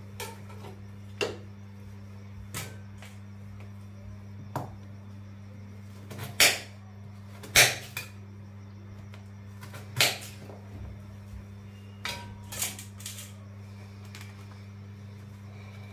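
Hand-cutting vegetables with a knife over a steel plate: irregular sharp clicks and knocks as the blade and cut pieces hit the plate, a dozen or so spaced one to two seconds apart, over a steady low electrical hum.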